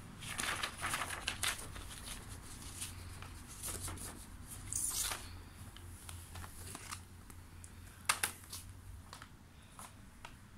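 Sheets of paper rustling and crinkling in bursts as a kitten scrambles and plays on them, with a couple of sharp clicks about eight seconds in.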